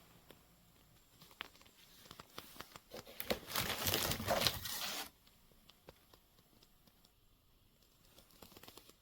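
Scattered light clicks and handling noise, with a two-second crinkling, tearing noise about three seconds in.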